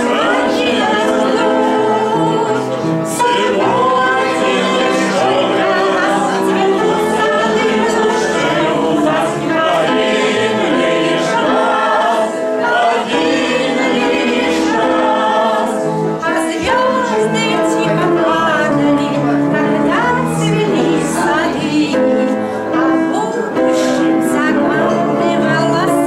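A small group of voices singing a song together in chorus.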